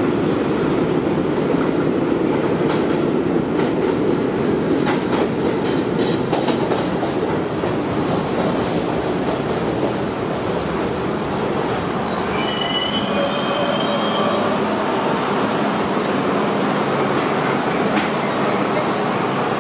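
R42 subway train pulling into an elevated station: a steady rumble of steel wheels on the track that eases as it slows, with a brief high squeal about two-thirds of the way through as it comes to a stop.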